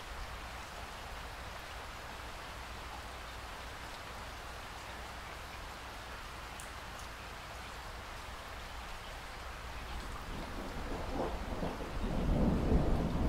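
Steady rain hiss, with a rumble of thunder building about ten seconds in and swelling to a loud, deep rumble near the end.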